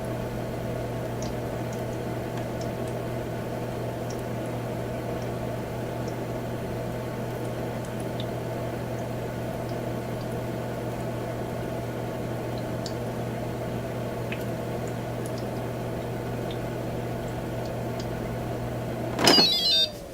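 Humidifier running with a steady low hum and a few faint ticks. Near the end a sharp, loud click, then the hum stops and a falling whine sets in.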